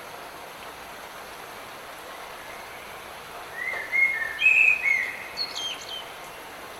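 Steady patter of rain, with a songbird singing one short phrase of whistled notes and quick glides a little past halfway through.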